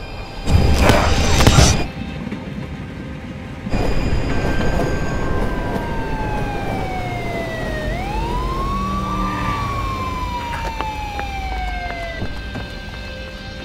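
A loud noisy burst lasting about a second, then a siren wailing over a low rumble: a long falling tone, a quick rise, and another slow fall that fades out.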